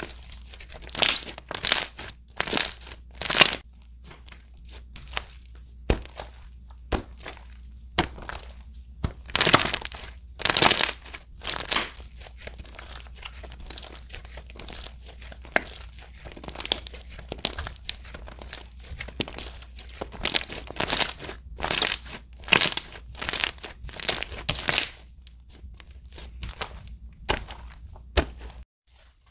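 Slime being stretched, pulled apart and pressed by hand, giving crackling, tearing sounds in repeated short bursts about once or twice a second. A steady low hum runs underneath and cuts off near the end.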